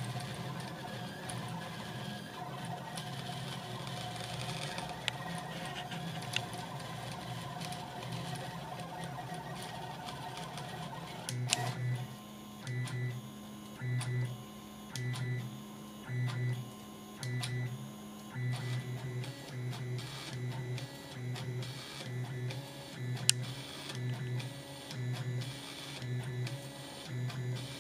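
A 3D printer's stepper motors whir as the pen carriage draws. The sound runs steadily at first. After a click about eleven seconds in, it turns into a rhythmic pulse about once a second as the carriage sweeps back and forth laying crosshatch infill.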